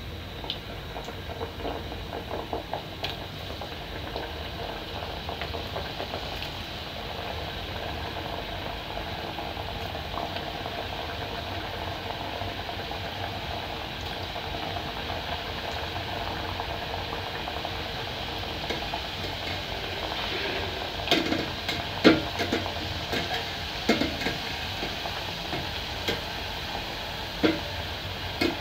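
Mandazi dough frying in hot oil in an aluminium pot, a steady sizzle. In the last several seconds a metal spider skimmer knocks and scrapes against the pot as the pieces are turned.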